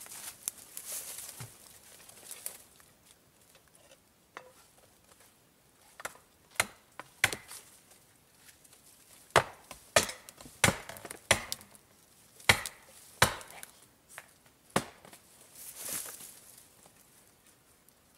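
About a dozen sharp, irregular strikes on wood, some coming in quick pairs, like an axe or sledge hitting a trunk. A high hissing rustle comes at the start and again near the end.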